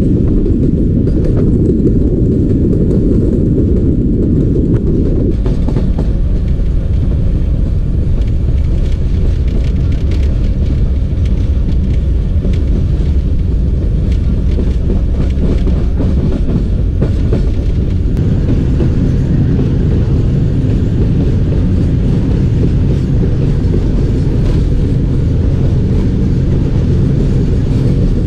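A moving passenger train heard from an open coach window: a steady, loud rumble of the wheels running on the rails, with scattered faint clicks.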